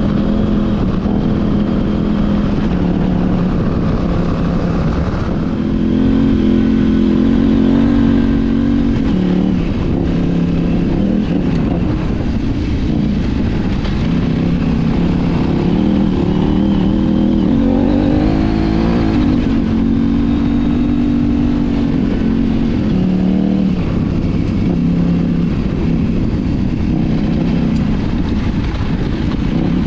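KTM 790 Adventure R's parallel-twin engine, fitted with an Arrow slip-on exhaust and racing mid-pipe, pulling and easing off under throttle on a dirt trail. Its pitch climbs and drops in steps with gear changes, over a steady low rumble of wind and road noise.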